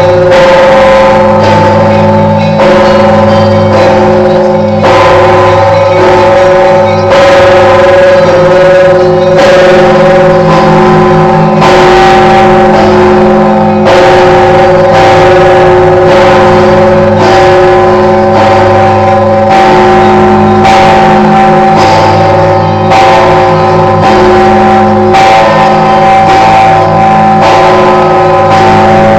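Orthodox church bells ringing loudly, the 7,150 kg 'All Saints' bishop's bell among them: strikes about once a second, each leaving a long hum of several overlapping tones.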